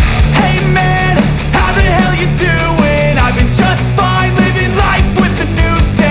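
Loud rock music with a driving drum beat, distorted guitars and a melodic lead line.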